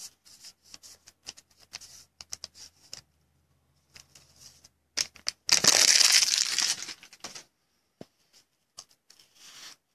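2016 Topps Tribute baseball card pack wrapper being handled with small crinkles, then torn open in one loud tear lasting about two seconds, a little past the middle; the cards are then slid out with faint rustling.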